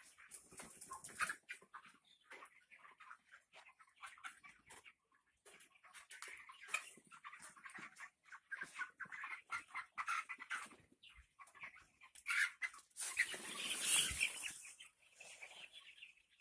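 A flock of broiler chickens in a poultry shed, many birds giving short overlapping clucks and cheeps. A louder, noisy burst comes about thirteen seconds in.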